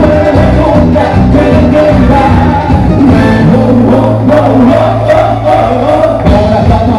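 A Latin dance band playing live with singing, over a steady beat.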